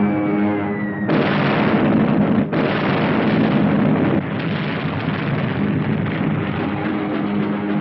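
Falling bomb whistle that ends in a heavy explosion about a second in, with a second blast about a second and a half later. Rumbling explosion noise continues and drops off at about four seconds, with held musical notes underneath throughout.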